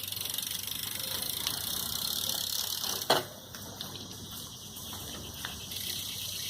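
BMX bike rolling steadily on its tyres, then one sharp impact about three seconds in as bike and rider hit the ground.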